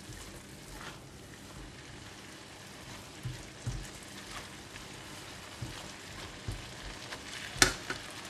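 Cabbage and luffa being stir-fried in a wok: a steady low sizzle, with soft knocks and scrapes of a plastic spatula against the pan. One sharp knock of the spatula on the wok near the end is the loudest sound.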